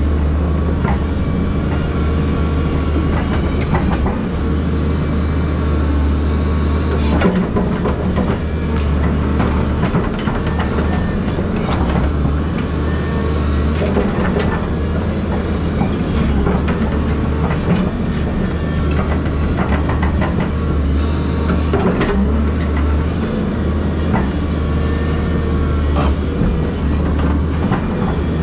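Volvo EC220DL excavator's diesel engine running steadily under load as it works a rake through the soil, with scattered knocks and clanks; two louder knocks stand out, about a quarter and three-quarters of the way through.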